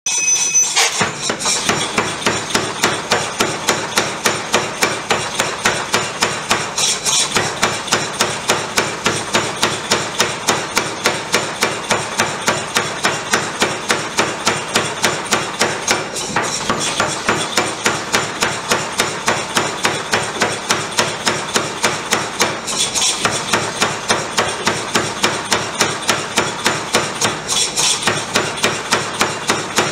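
A 1cwt Massey pneumatic power hammer striking a red-hot 45 mm round steel bar in rapid, even blows, about three a second, drawing the bar down.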